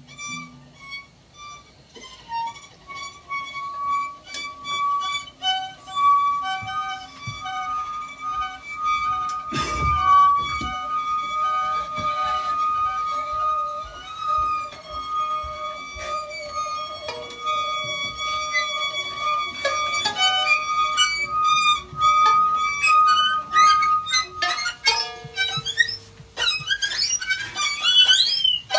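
Improvised experimental ensemble music: a long held high note over scattered short plucked and tapped notes, with a single knock about ten seconds in and quick wavering pitch slides near the end.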